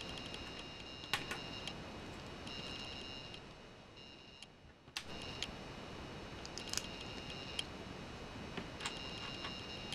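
Lego plastic bricks being handled and pressed together: scattered small sharp clicks and snaps, several seconds apart, over a faint high-pitched whine that comes and goes.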